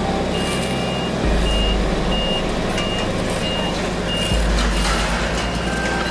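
A heavy road machine's reversing alarm beeping evenly over the low rumble of a diesel engine that swells and eases, with shovels scraping and knocking on asphalt.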